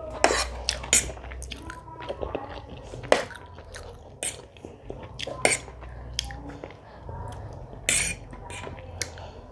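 A person eating homemade egg noodles: chewing, with many short, sharp clicks and clinks of a utensil against a plate scattered throughout.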